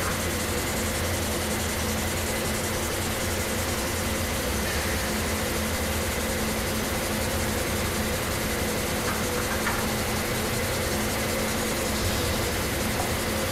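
Textile mill yarn machinery running steadily: a constant mechanical hum and hiss with a thin high whine held throughout.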